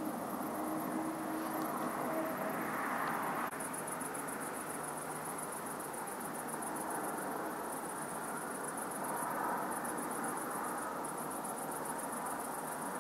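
Crickets chirping in a fast, continuous high trill, over a steady distant rumble. The background changes abruptly about three and a half seconds in.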